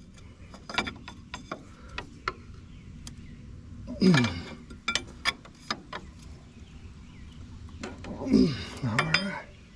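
Wrench and metal hose fittings clinking and clicking irregularly as a hydraulic hose is tightened on a backhoe, with two brief falling voice sounds about four and eight and a half seconds in.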